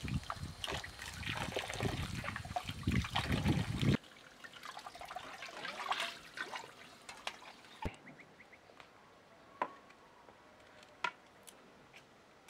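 Water pouring and splashing over sliced eggplant in a metal tray as hands rinse the slices, cutting off abruptly about four seconds in. Quieter splashing follows as the rinse water is tipped out of the tray, then a few sharp single clicks.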